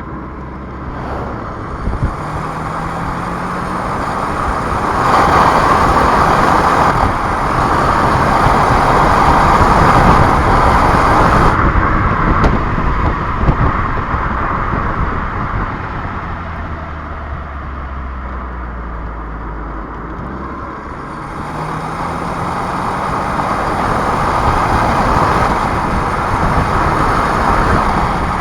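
Renault Clio's turbocharged 1.3-litre four-cylinder petrol engine pulling under acceleration, with tyre and road noise. The sound builds over the first few seconds, eases off around the middle, then builds again near the end.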